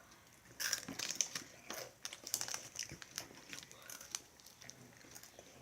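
Plastic candy packaging being handled, crinkling in short, irregular rustles and clicks.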